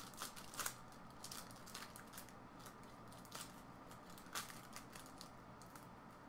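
Faint, scattered clicks and light ticks at irregular intervals over a low steady hum.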